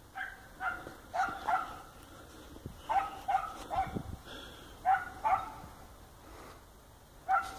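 A dog barking in about ten short barks, in clusters of two or three with pauses between: a hunting dog giving voice while trailing a rabbit's scent.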